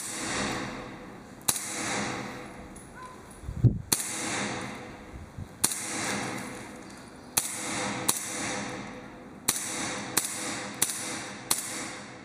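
Airsoft gun being fired, about a dozen sharp shots at irregular intervals, some under a second apart. Each shot is followed by a short fading hiss. There is a low thump a few seconds in.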